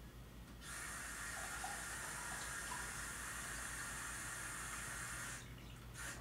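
Water running from a tap, a steady hiss that starts about a second in and stops abruptly about a second before the end.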